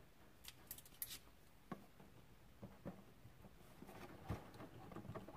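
Quiet handling noise from hands working on an RC crawler's plastic body as the snorkel mount is tightened: scattered light clicks and taps, getting busier near the end, with a soft knock a little after four seconds in.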